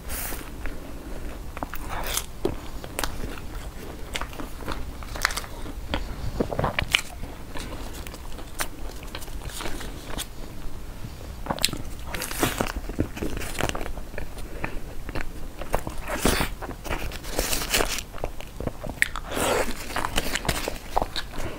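Close-miked eating sounds: biting and chewing a flaky egg tart, with crinkling and rustling of a paper pastry liner being peeled off a snow-skin mochi. The sounds come in irregular short crackles and clicks, busiest in the second half.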